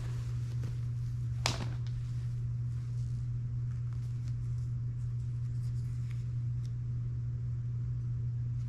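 Steady low hum with faint rustling and light clicks from clothes being handled and rummaged through in a box, and one sharp click about a second and a half in.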